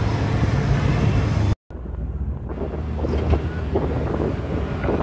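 Auto-rickshaw in motion: a steady low engine and road rumble with wind buffeting the microphone. The sound drops out for a moment about a second and a half in, then the rumble carries on with a few faint clicks.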